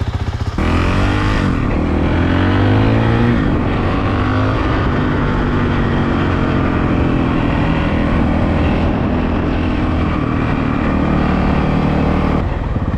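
Honda CRF450RL's single-cylinder four-stroke engine through a full FMF exhaust, pulling away under throttle about half a second in with a rising engine note. It then runs at riding speed with the pitch shifting as the throttle changes, and drops back to a low pulsing note near the end.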